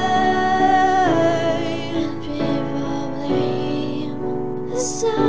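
A solo singer holds a long note with vibrato for about a second, then a piano or keyboard accompaniment carries on alone with sustained chords until the voice comes back in near the end.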